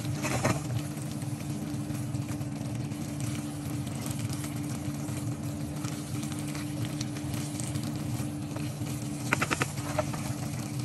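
Tofu cubes in sauce simmering and bubbling in a nonstick frying pan, stirred with a wooden spatula that scrapes the pan about half a second in and again near the end, over a steady low hum.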